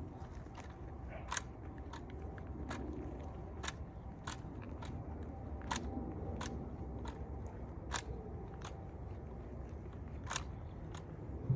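Hand pruning shears snipping through laceleaf Japanese maple branches: about a dozen sharp snips at irregular intervals.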